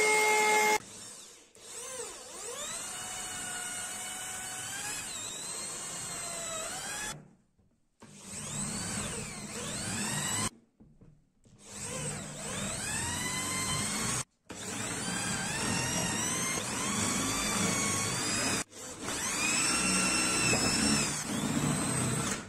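A router table's steady whine that cuts off within the first second, then an electric drill boring holes through a thin pine slat with twist bits. The drill runs in several bursts with short stops between them, and its motor pitch rises and falls as the trigger is squeezed and the bit bites. The holes are stepped up from a thinner to a thicker bit so the thin wood does not split.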